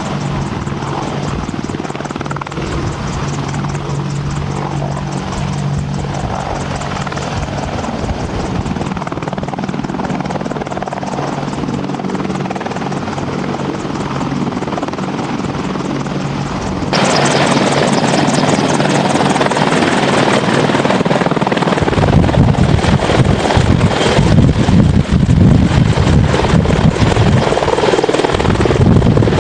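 AH-64D Apache Longbow helicopters' rotors and twin turboshaft engines running steadily on the ground, with a steady low hum. About halfway through the sound cuts abruptly to a louder, closer Apache hovering overhead, its low rotor beat growing heavier near the end.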